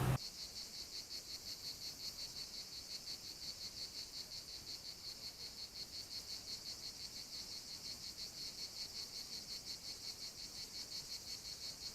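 A cricket chirping steadily: a high-pitched chirp repeating evenly about four times a second.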